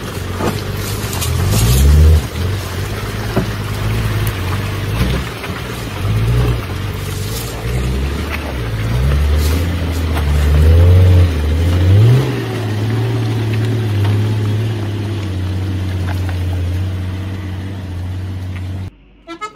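Engine of a small 4x4 truck loaded high with logs, labouring up a muddy track and revving up again and again under the heavy load. It cuts off suddenly near the end.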